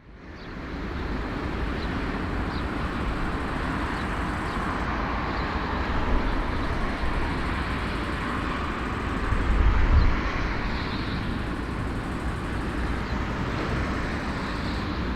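Steady rushing engine noise of a large aircraft with a deep rumble underneath, fading in at the start and swelling briefly about ten seconds in.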